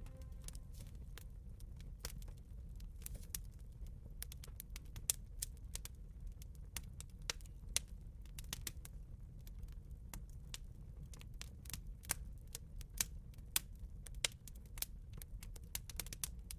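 Wood campfire crackling, with irregular sharp pops scattered throughout over a steady low rumble.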